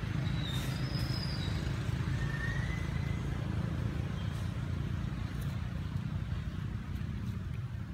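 Outdoor ambience: a steady low rumble, with a few brief high whistled bird calls in the first three seconds.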